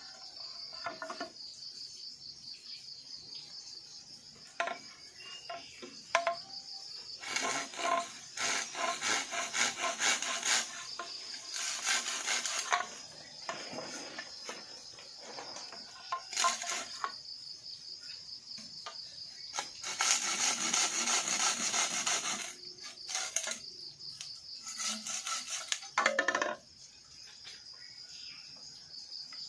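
Bamboo being worked with a hand blade in quick back-and-forth strokes, coming in several spells of a few seconds each. A steady high chirring of insects runs underneath.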